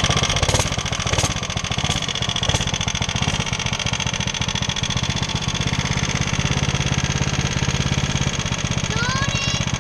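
Small single-cylinder four-stroke engine of a Coleman off-road go-kart running steadily at low speed. A few sharp ticks sound in the first three seconds.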